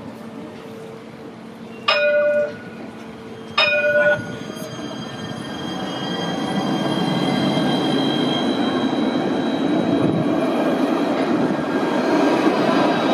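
Alstom Citadis low-floor tram: two short warning tones, about two and three and a half seconds in, each cutting off sharply. The tram then moves off and passes close by, its rolling noise on the rails swelling and holding, with a thin high steady whine above it.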